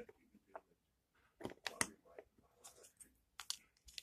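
Small plastic LEGO bricks clicking and tapping as they are handled and pressed together, in scattered faint clicks with a quick cluster of them about a second and a half in.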